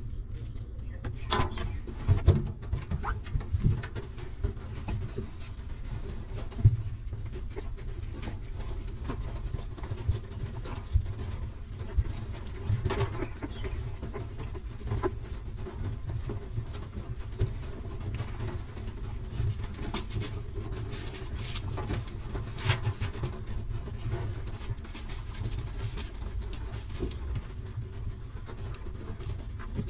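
Newborn puppies whimpering and grunting while they nurse, over a steady low rumble, with scattered short rustles and knocks.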